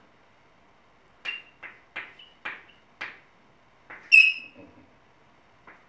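Chalk writing on a blackboard: about five short taps and strokes, then a brief high-pitched chalk squeak a little after four seconds.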